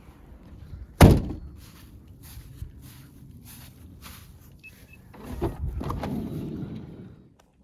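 A loud thunk about a second in, followed by a series of soft knocks and rustles, then a louder steady noise lasting about two seconds near the end.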